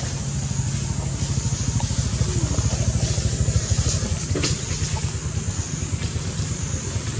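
A steady low mechanical rumble with a constant low hum, like a motor running, swelling a little in the middle.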